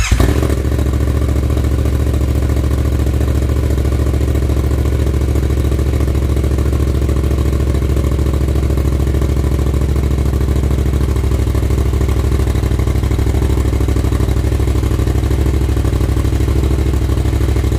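Yamaha FZ-07's 689 cc parallel-twin idling steadily through a Black Widow full exhaust system on its first start after the install. The exhaust is leaking at both of its clamped joints.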